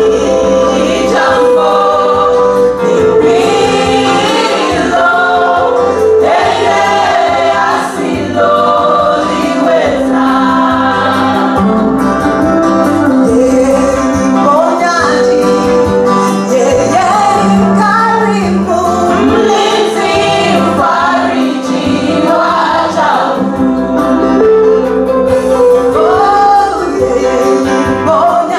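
A women's gospel vocal group singing a Swahili worship song through microphones, several voices together in harmony over sustained low accompanying notes.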